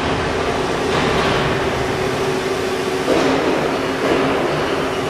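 Three-coordinate CNC deep hole drilling machine running: a steady mechanical whir and rush with a constant low hum underneath.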